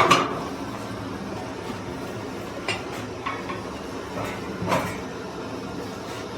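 One loud metallic clank right at the start that rings briefly, then a few lighter metal clinks and knocks, over a steady low hum.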